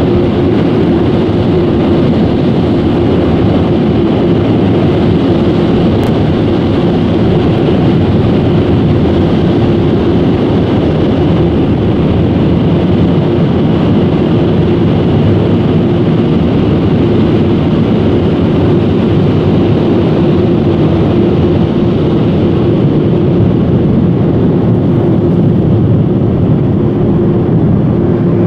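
Car wash air dryer blowers running: a steady, loud rush of air with a constant hum.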